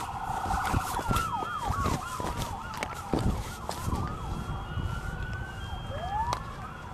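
Several emergency-vehicle sirens sounding at once and overlapping, a fast yelp that changes about a second in to slower rising and falling wails, with scattered knocks.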